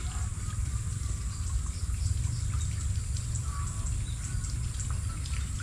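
Outdoor ambience by a small ditch: a steady low rumble under a continuous high-pitched insect drone, with faint scattered ticks.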